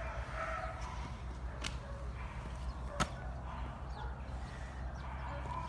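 Two sharp clicks of the wire-mesh fence of a dog pen being knocked, about a second and a half in and again, louder, about three seconds in, over a steady low hum.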